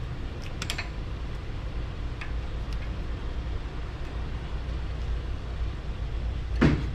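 Faint metal clicks of cutter pliers working the cotter pin out of the CV axle nut at the wheel hub, with one louder sharp click near the end, over a steady low background hum.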